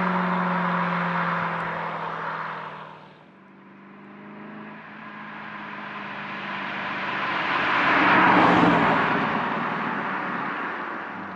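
Aston Martin V8 Vantage's V8 engine pulling away, its note slowly dropping in pitch and fading over about three seconds. A car then approaches and passes, loudest about eight seconds in, and fades away.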